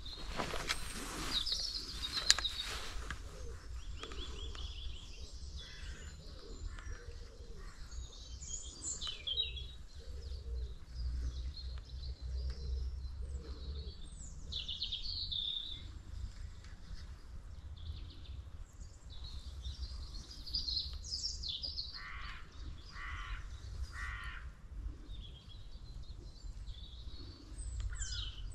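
Birds chirping and calling at scattered intervals, with three harsher calls in quick succession in the last third, over a steady low rumble.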